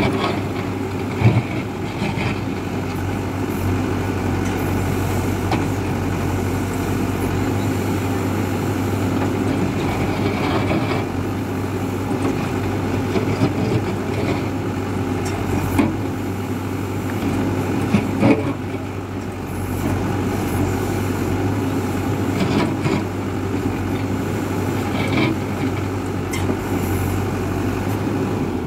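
Hidromek 102B backhoe loader's diesel engine running steadily under work, with a few sharp knocks, the loudest about a second in and twice around eighteen seconds in.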